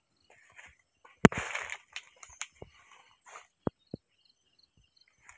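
Footsteps and rustling among fallen, shredded banana leaves: scattered sharp clicks, with a short rustle just over a second in. Faint, steady insect chirring runs underneath.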